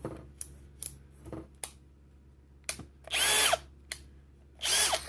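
Bosch 18V brushless cordless hammer drill/driver triggered in two short bursts, its motor whining up and winding down each time, with a few light clicks before.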